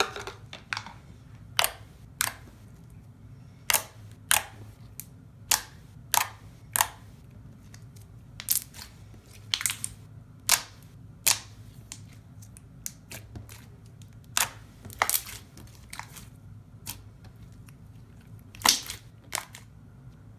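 Thick, glossy slime being pressed and folded by hand, giving sharp clicks and pops at irregular intervals, about one a second.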